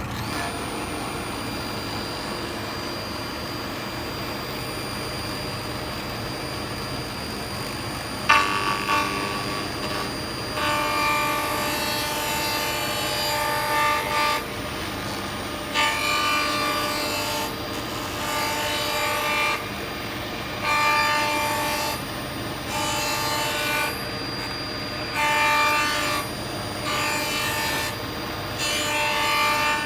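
Panel saw's circular blade running steadily. From about eight seconds in it makes several cuts of a few seconds each, and each cut is louder, with a ringing tone as the blade goes through the workpiece.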